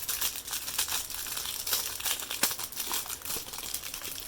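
Plastic packaging crinkling and crackling as a trading-card hanger box is opened and its contents handled, a continuous run of small crackles.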